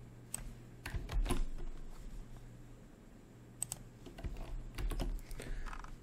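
Computer keyboard keystrokes in two short flurries of taps while code is copied and pasted.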